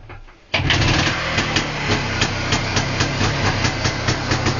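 IZh Planeta-2's single-cylinder two-stroke engine cold-starting at −10 °C: it fires about half a second in and keeps running with a steady, regular exhaust beat.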